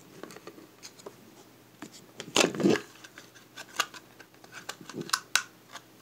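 Plastic hard-drive case parts being handled and fitted together: scattered light clicks, a louder scraping rub about two and a half seconds in, then a run of small clicks and taps.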